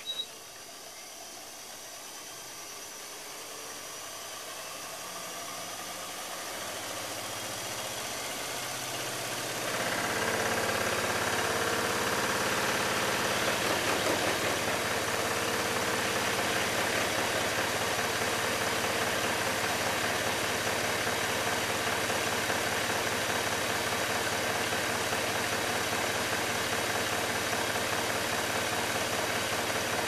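Washing machine spin basket spinning with a 1 kg unbalanced load and no balancer, the tub and cabinet shaking hard from the imbalance. The spin grows louder as it speeds up. About ten seconds in it jumps to full spin near 1,050 rpm and runs loud and steady. A brief click comes at the very start.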